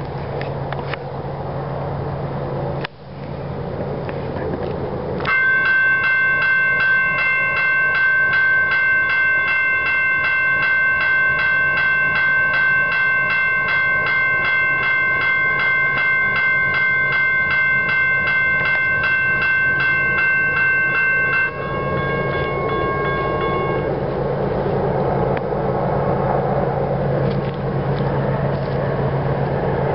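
Railroad grade-crossing bell ringing in fast, even strokes for about sixteen seconds, then cutting off suddenly. A low steady drone runs underneath, and a broader rumble builds after the bell stops.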